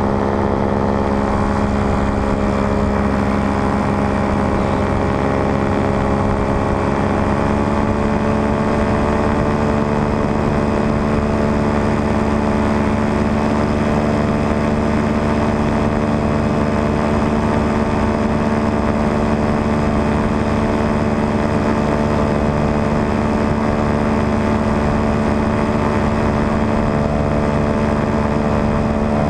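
Paramotor engine and propeller running steadily in flight, a continuous drone whose pitch rises slightly about seven seconds in.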